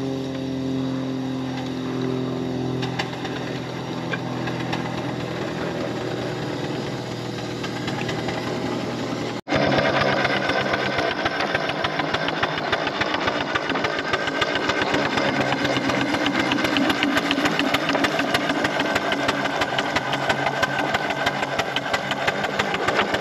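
4-inch-scale Foster steam traction engine running. For the first nine seconds or so the sound is steadier, with a few held tones. After a sudden cut it is close up: exhaust beats and motion clatter in a fast, even rhythm.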